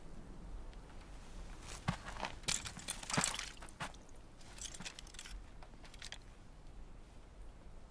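Footsteps and rustling in dry grass, with a few sharp crunches about two to three and a half seconds in as the rifle is picked up from the ground.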